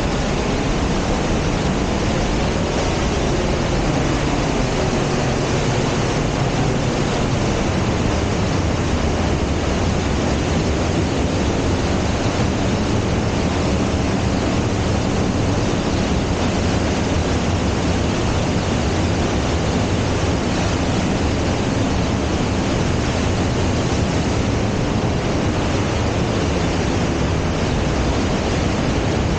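Waterfall and mountain creek rushing steadily through a narrow rock gorge, a constant even wash of water noise.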